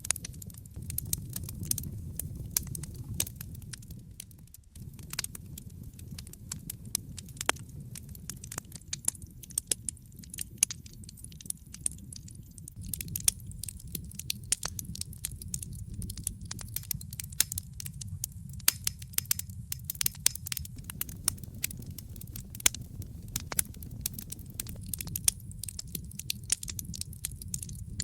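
Wood fire crackling in a fireplace: frequent irregular pops and snaps over a steady low rumble of flame. The rumble drops out briefly about four and a half seconds in.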